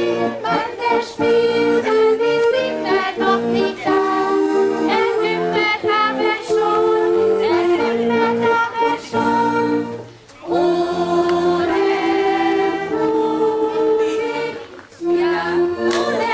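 A song sung by a group of voices, with held notes in phrases and short breaks about ten and fifteen seconds in.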